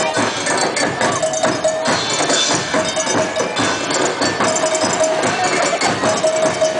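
Dance music with a busy jingling, rattling percussion beat and a melody that keeps returning to one held note.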